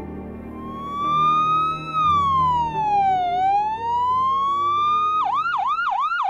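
Emergency-vehicle siren over soft background music. It starts as a slow wail that rises, falls and rises again, then about five seconds in switches to a fast yelp of about three cycles a second.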